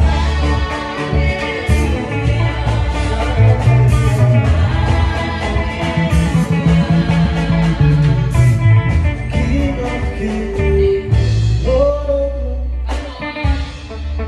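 A live church worship band playing: drums, bass and guitar, with singing.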